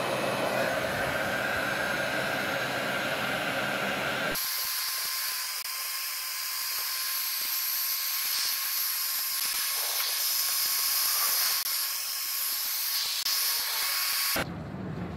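Heat gun blowing steadily, warming the oil pan's RTV sealant to loosen the pan from the engine block. About four seconds in the deeper part of the sound drops away abruptly, leaving a high hiss, which cuts off near the end.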